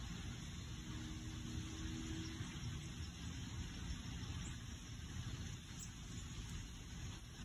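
Faint steady background rumble and hiss, with a faint hum from about a second in to about two and a half seconds in.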